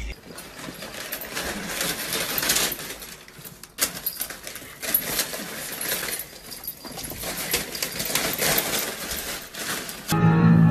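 Crumpled wrapping paper crackling and rustling as a kitten rolls in it and bats at it, with one sharp click about four seconds in. Music starts just before the end.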